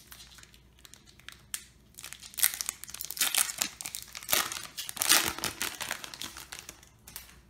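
Foil wrapper of a Yu-Gi-Oh! booster pack crinkling and tearing as it is handled and torn open by hand, in a run of sharp crackles from about two seconds in until near the end.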